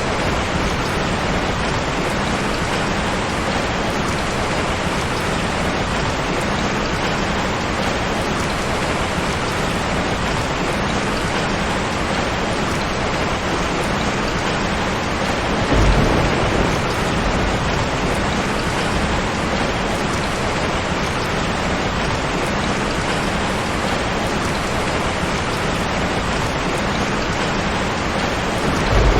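Steady heavy rain. A short low rumble of thunder comes about halfway through and another near the end.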